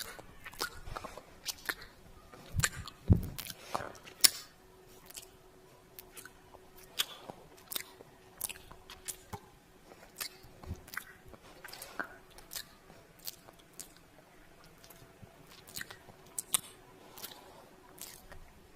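Close-up kissing sounds made with the lips: wet smacks and pops, repeated irregularly about one or two a second, over a faint steady hum.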